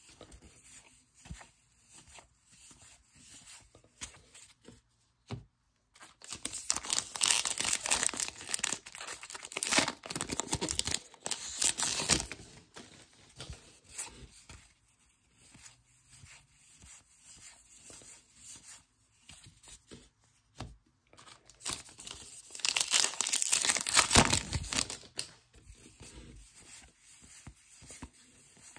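Wrapper packaging of Topps Heritage baseball card packs being torn open and crinkled, in two louder bouts about six seconds in and again just past twenty seconds, with quieter rustling between.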